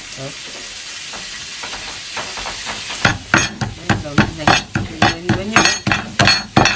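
Hammer pounding snake meat on a round wooden chopping block. A steady hiss comes first, then a quick run of knocks, about four a second, starting about three seconds in.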